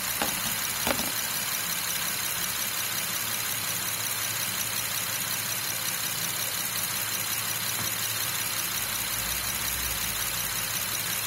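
Honda Elysion's engine idling steadily, warm after about ten minutes' running on fresh oil, with a steady high hiss over it. Two short clicks come within the first second.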